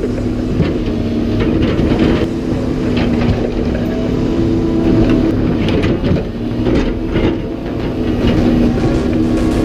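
A large engine running steadily, with scattered knocks and clanks.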